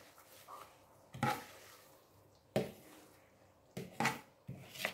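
A spoon scraping and knocking against a plastic bowl as the last moringa leaves are cleaned out into a soup pot: a handful of short knocks and scrapes a second or so apart.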